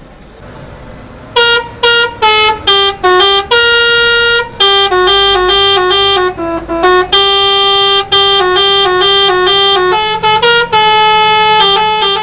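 Truck's telolet musical horn playing a tune: a quick run of short, loud horn notes at changing pitches starting about a second and a half in, then longer held notes.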